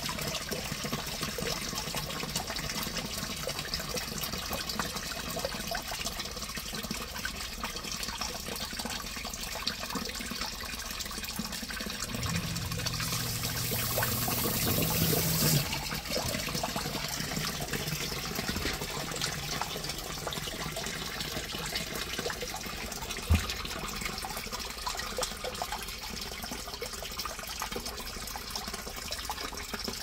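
Water splashing and trickling steadily into a sump pit from the drain-tile inlets, with a submersible sump pump's low hum coming in about halfway through. A louder rushing stretch builds for a couple of seconds and cuts off suddenly about halfway, and a single sharp click comes a little later.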